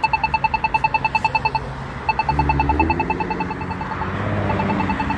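Accessible pedestrian signal push button (Polara iNS) giving its fast percussive tick, about ten clicks a second. This is the rapid tick that marks the walk phase. It comes in three runs with short breaks, over a low traffic rumble.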